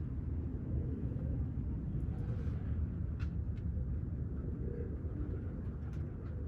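Steady low outdoor rumble, with a few faint short high sounds about two and three seconds in.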